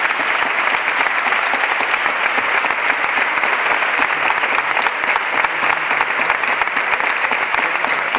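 A crowd applauding: a steady, unbroken round of clapping from many hands.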